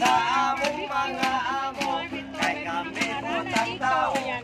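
People singing a song together, a man's voice leading, over a strummed guitar with a steady stroke a little under twice a second.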